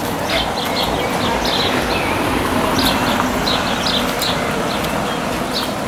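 Historic tramcar 2990 of the Große Berliner Straßenbahn rolling slowly on its rails towards the listener, a steady rumble, with birds chirping.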